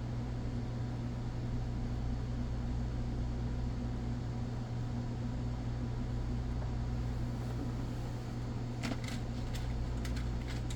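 A steady low mechanical hum, with a few light clicks about nine to ten seconds in.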